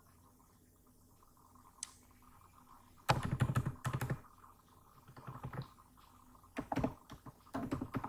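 Computer keyboard typing in short bursts of keystrokes, starting about three seconds in after a quiet stretch with a single faint click.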